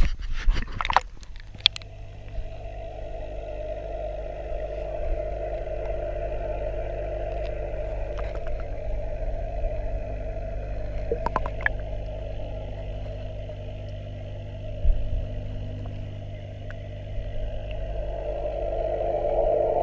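Aquarium pump and air bubbles heard underwater through a GoPro's waterproof housing: a steady low hum with a bubbling hiss over it that grows louder near the end. A few knocks in the first two seconds and one more about fifteen seconds in as the camera is handled.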